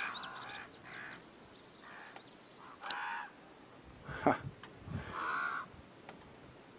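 Crows cawing in short, separate calls, about half a dozen in all, the loudest about three, four and five seconds in. The birds are agitated.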